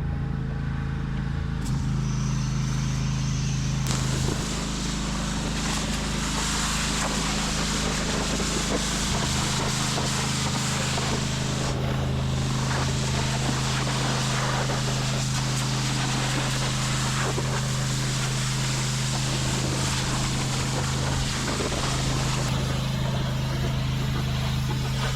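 Pressure washer running steadily, with the high-pressure spray hissing, briefly stopping and starting again a few times.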